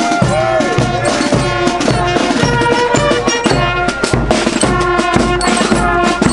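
Music with drums and percussion under a melody line.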